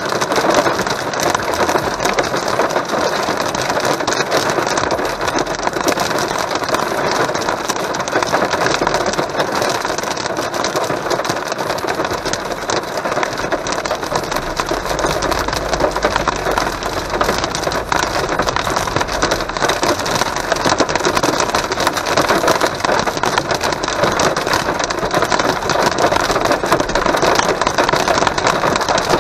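Heavy rain drumming steadily on a car's roof and windscreen, heard from inside the cabin over the car's engine and tyre noise on the wet road.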